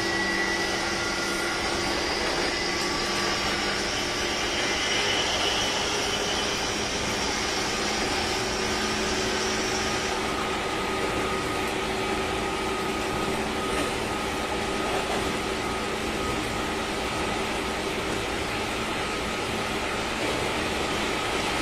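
Running noise heard inside a JR 201 series electric train's motor car: a steady rumble with several held whining tones from the traction equipment. A high whine cuts off about halfway through, while a lower whine carries on.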